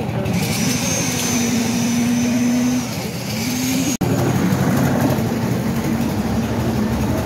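An engine running steadily, with a held whine that briefly rises in pitch a little past halfway. The sound breaks off sharply about four seconds in, and similar engine running carries on after the break.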